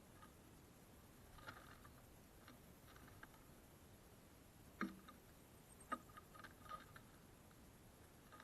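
Faint, scattered ticks and taps of small birds pecking seed and hopping about on a wooden feeder, the loudest two a little under five seconds and about six seconds in.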